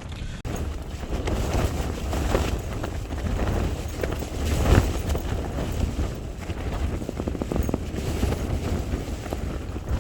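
Strong wind battering a tent: rumbling gusts on the microphone with the fabric flapping and cracking over and over. A louder gust comes about four to five seconds in.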